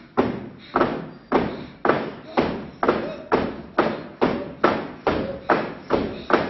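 Heavy thuds repeating evenly, a little more than two a second, each ringing out briefly as in a large hall.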